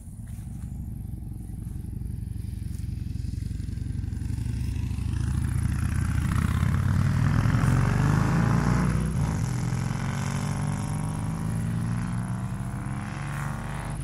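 Two motorcycles come down the mountain road and pass by. Their engines grow louder as they approach, are loudest about eight seconds in, then drop in pitch and fade a little as they go past.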